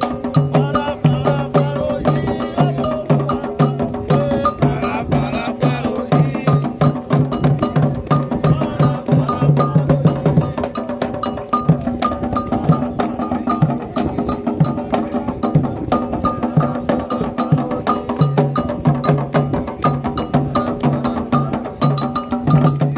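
Candomblé toque played on atabaque hand drums with an iron bell (agogô) striking a fast, steady pattern over repeated low drum strokes.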